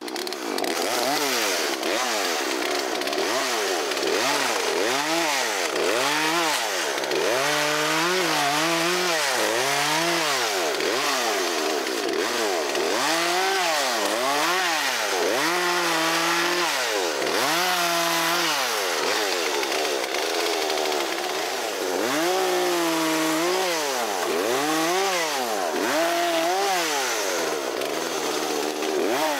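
Vintage Poulan Wood Shark two-stroke chainsaw running, its engine speed rising and falling over and over, about once a second, as the throttle is opened and let off repeatedly.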